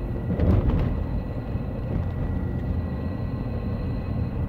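Steady low rumble of a car heard from inside the cabin, with a faint steady high whine. About half a second in there is a brief soft noise of a bite into a cake donut.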